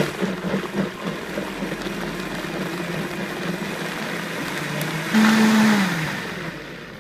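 Countertop blender motor running at low speed, blending a hot tomato bean sauce. About five seconds in it is turned up and gets much louder, then the pitch falls as it is turned back down, kept low so the hot liquid doesn't jump out of the jug.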